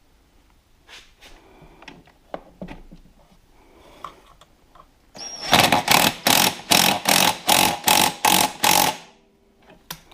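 A few faint metal clinks of tools and parts, then a power tool running in about a dozen quick bursts, roughly three a second, as it runs a nut down tight.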